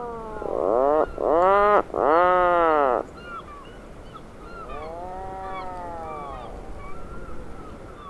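Atlantic puffin calling: a series of low, drawn-out calls, each rising then falling in pitch. The calls are loudest in the first three seconds and fainter after that, with short high calls faint in the background.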